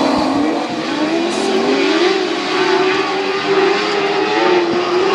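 A pack of lightning sprint cars racing, their high-revving 600cc motorcycle engines running at full song, several overlapping engine notes rising and falling in pitch.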